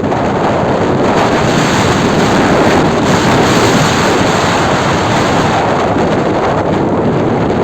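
Rough sea: waves breaking in steady surf, with strong wind buffeting the microphone.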